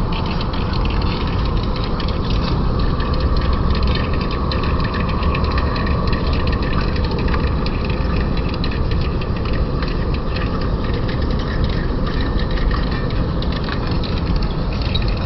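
Lathe running steadily while turning the neck of a 40Kh alloy steel shaft, a low machine rumble with a constant fine crackle of cutting.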